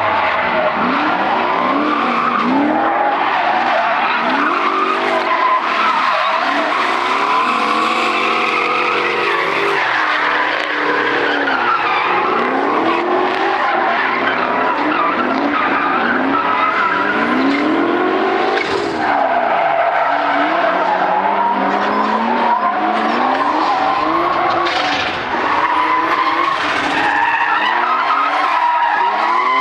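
Drift cars' engines revving up and dropping again and again as they slide, with tyres squealing and skidding throughout. At times more than one engine note overlaps.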